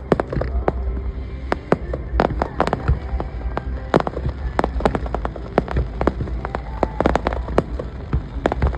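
Fireworks display: a dense, irregular run of sharp bangs and crackles from shells bursting, several a second, over a steady low rumble.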